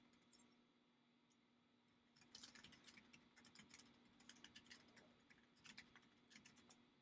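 Near silence, with faint quick clicking in spells from about two seconds in until near the end.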